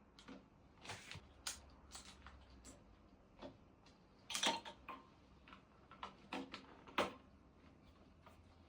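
Irregular light clicks and knocks of small parts being handled, about a dozen in all, the loudest a short cluster about halfway through and a sharp click near the end.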